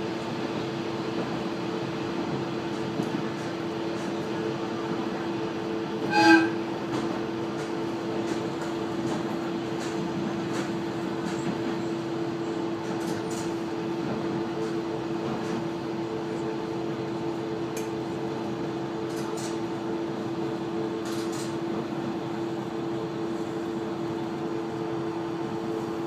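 Steady drone of a KiHa 120 diesel railcar under way, heard from inside the car: engine and running gear humming with rolling noise from the rails. About six seconds in comes one short, loud pitched blast, the railcar's horn.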